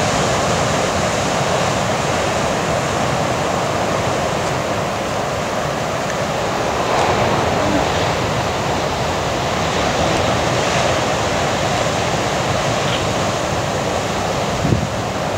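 Ocean surf breaking and washing: a steady rushing noise with one brief knock near the end.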